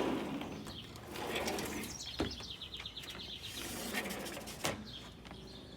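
Indoor air-handler unit of a central air conditioner being shut down: a steady low hum dying away, with scattered clicks and a short run of rapid ticking about two seconds in.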